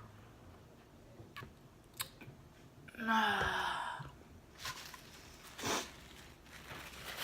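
A few light clicks of food and wrapper handling, then about three seconds in a loud wordless vocal sound like a sigh of fullness, about a second long and falling in pitch, followed by two short breathy puffs.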